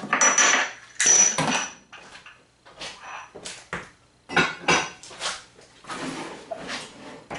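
Kitchen handling sounds: small ramekins clinking as they are picked up off a wooden counter, then a run of knocks and clatters. Near the end comes a longer scrape as a glass baking dish is moved on the counter.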